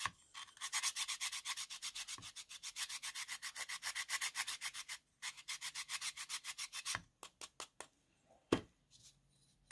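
A stick of pink chalk scraped rapidly back and forth on a fine metal mesh grater, grinding it into powder: quick rasping strokes about five a second, with a brief break about five seconds in, thinning to a few separate strokes near the end.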